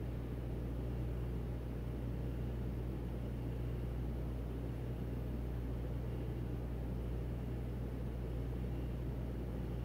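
Steady low mechanical hum with a faint even hiss, unchanging throughout: the drone of running equipment or ventilation in the room.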